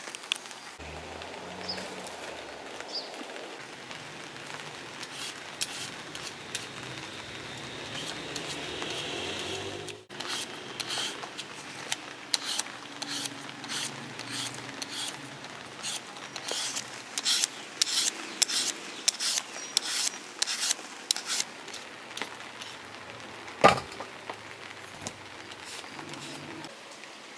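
A plastic sheet rustling at first, then a hand vegetable peeler scraping the skin off potatoes in quick strokes, about two a second, with one sharp knock near the end.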